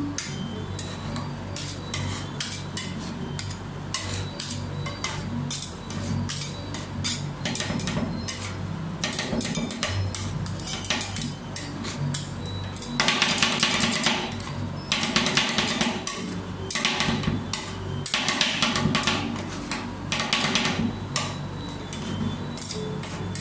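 Two metal spatulas rapidly chopping and tapping on a steel rolled-ice-cream pan, working strawberry into the ice cream base, with stretches of louder, faster chopping and scraping about halfway through and again later.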